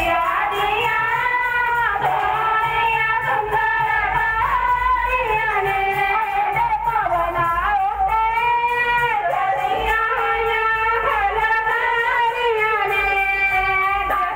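Devotional singing with instrumental accompaniment, a single melodic voice gliding and held on long notes, played loudly over horn loudspeakers.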